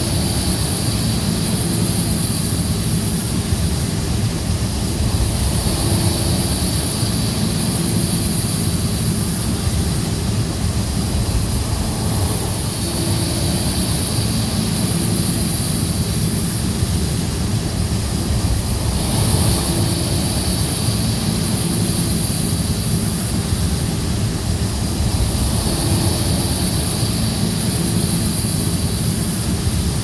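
Loud, steady mechanical drone with a high whine above it, swelling slightly about every six seconds.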